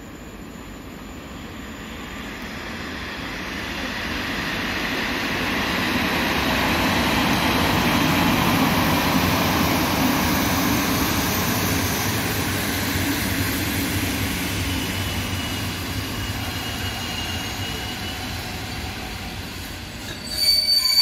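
PKP Intercity EP07 electric locomotive hauling passenger coaches past on the station track: the rumble of wheels on rail swells to a peak about a third of the way in, then slowly fades as the coaches go by. A thin wheel squeal rings out in the later part, and a brief, loud, high squeal comes near the end.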